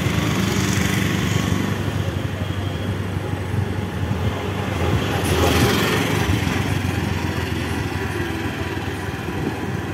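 A small motor vehicle's engine running steadily while moving along a road, with road noise, briefly louder about five seconds in.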